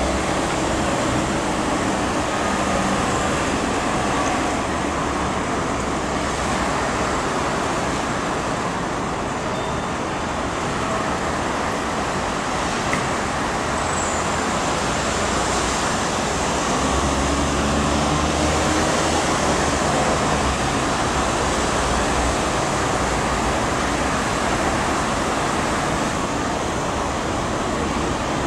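Steady vehicle-traffic rumble and hiss with no distinct events, swelling slightly a little over halfway through.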